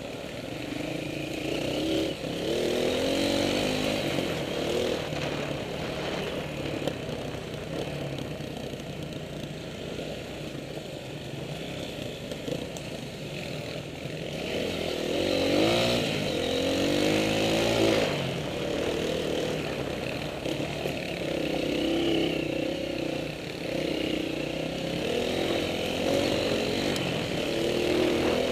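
Honda CRF230 dirt bike's single-cylinder four-stroke engine heard from on board, revving up and easing off again and again as it is ridden along a rough trail, with several rising pulls through the gears.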